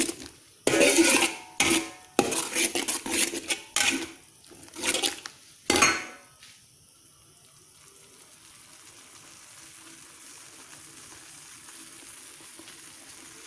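Metal spatula scraping and clanking against a large metal wok as a big batch of fried rice is stirred and turned, in quick irregular strokes. The stirring stops about six seconds in, leaving a faint steady hiss.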